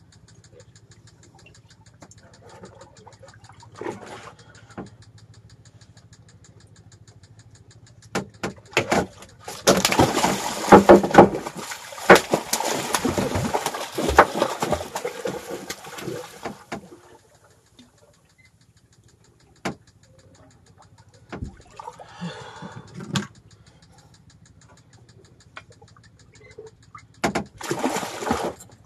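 A hooked shark thrashing and splashing at the surface beside a small boat: heavy splashing starts about ten seconds in and lasts around seven seconds, with another shorter bout near the end. A low steady engine hum runs underneath.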